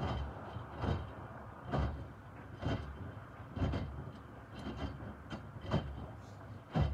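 Miele W2573 front-loading washing machine in its main wash, the drum turning and tumbling a wet load of microfiber cloths. Water and fabric slosh and splash down about once a second, in an even rhythm.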